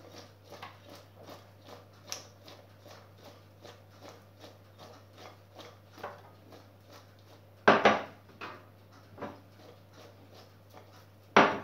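Hands tossing chopped vegetables in a glass bowl: soft, regular rustling, about three strokes a second, over a steady low hum, with two sharp knocks, about two-thirds through and at the very end.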